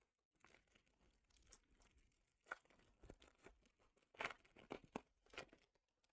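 A foil booster pack wrapper being torn open and crinkled: faint, irregular crackles, the loudest a little after four seconds in and again about five and a half seconds in.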